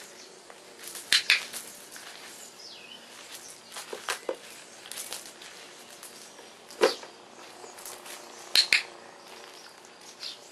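Sharp clicks of a dog-training clicker: a close double click about a second in, a single click near seven seconds and another double click near nine seconds, over faint crunching of gravel under a puppy's paws.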